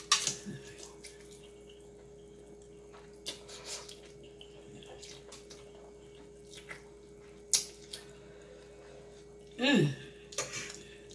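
A fork clicks and scrapes a few times against a metal baking sheet, with wet slurping of noodles eaten face-down without hands. Near the end comes a short vocal sound that falls in pitch.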